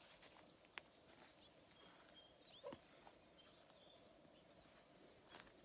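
Near silence: faint outdoor ambience with scattered distant bird chirps and a couple of small clicks, one about a second in and one near the end.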